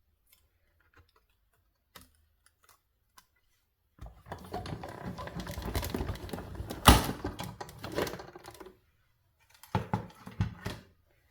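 Hand-cranked die-cutting machine rolling a cutting sandwich through its rollers, a dense rattling run of several seconds with a sharp click partway, then a shorter burst near the end.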